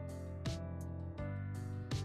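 Instrumental background music with held chords and a sharp beat about every second and a half.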